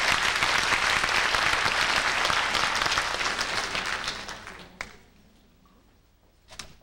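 Audience applauding, then dying away over about a second before the guitarist starts to play; one short sharp noise near the end.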